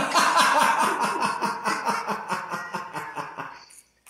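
A man laughing hard: a long run of quick, rhythmic bursts of laughter that fades out near the end.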